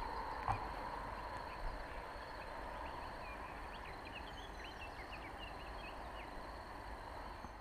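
Small birds chirping in a quick run of short calls from about two and a half to six seconds in, over a steady rumble of wind on the microphone.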